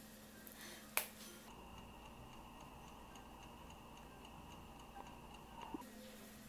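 A sharp click about a second in, then an electric oven running: a faint steady hum with a high tone over it and a fast, faint, regular ticking. It all cuts off near the end.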